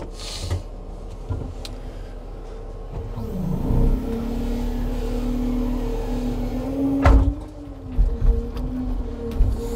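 Timber truck's engine running steadily, rising in revs about three and a half seconds in and holding there under load, as when it drives the log crane's hydraulics. A sharp knock comes about seven seconds in, with a few lighter knocks after.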